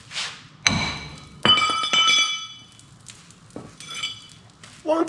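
Hammer striking steel on a truck's steering linkage, knocking a heated tie rod end loose: two sharp clangs that ring on, about a second and a second and a half in, then a few lighter ringing taps.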